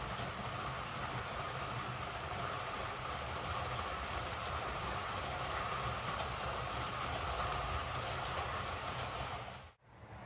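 Model railway locomotive running along the track with its coaches: the steady whine of the small electric motor over the rumble of wheels on the rails. The sound drops out briefly near the end.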